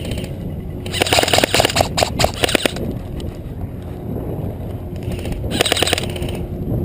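Airsoft electric gun firing in rapid clicking bursts: a long burst of about a second and a half, then a shorter burst about five and a half seconds in. Steady low rumble of wind and movement on the microphone underneath.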